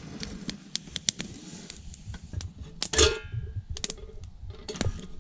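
Small wood campfire crackling with scattered sharp pops. About three seconds in, a steel cooking pot's wire bail handle and lid clank once with a short metallic ring.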